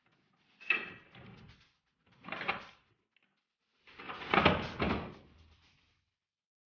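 Knocks and clatter of a car tail light being handled and fitted into the body, in three bursts, the last the longest and loudest.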